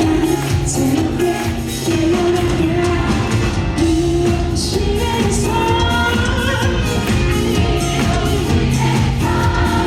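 Pop band music with singing, loud and continuous.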